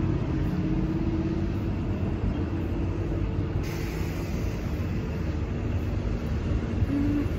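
Road traffic with buses running, a steady engine hum over a low rumble, and wind buffeting the microphone.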